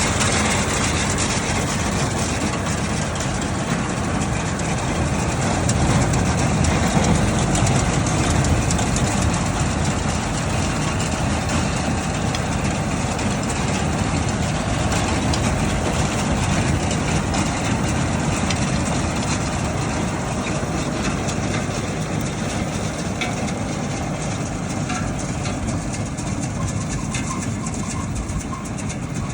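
Tractor engine running steadily while baling hay, with the baler machinery working.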